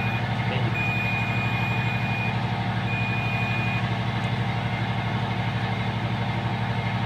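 Multimeter continuity buzzer beeping three times, a short chirp, then a steady beep of about a second and a half, then one of about a second, as the probe touches terminals connected to the common neutral. Underneath, a steady low machinery hum with a rapid even throb.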